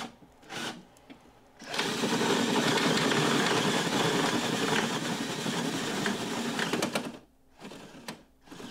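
A power drill runs steadily for about five seconds, enlarging a hole to one inch for an antenna, with a few short knocks of handling before and after.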